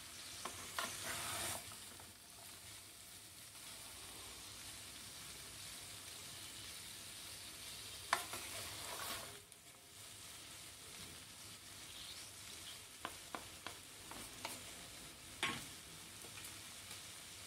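Ragi (finger millet) noodles and vegetables sizzling faintly in a nonstick frying pan as they are tossed with spatulas. Scraping strokes come about a second in and again around eight seconds, and several light clicks of the spatulas against the pan come near the end.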